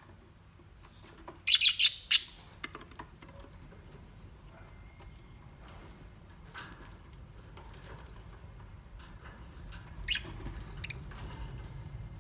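Parrot squawking: a burst of loud, harsh calls about a second and a half in, then quieter calls near the end.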